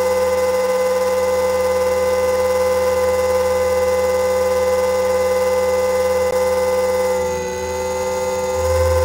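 RC helicopter heard through its onboard camera: a steady whine of several tones from its motor and spinning rotor. It dips briefly about seven and a half seconds in, and a low rumble comes in near the end.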